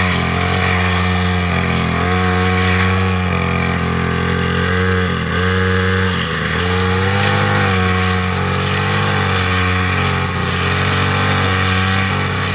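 A small engine running steadily. Its pitch dips and recovers about five to six and a half seconds in, as with a change of throttle.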